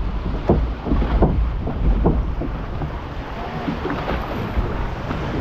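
Water rushing and splashing around a log flume boat as it floats down the channel, choppier in the first couple of seconds and then settling.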